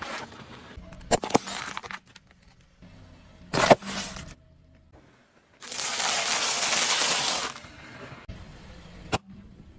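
Brittle things cracking and crunching as they are crushed, in several separate bursts. There is a loud sharp crack a little before the middle and a dense crunching noise about two seconds long just past halfway.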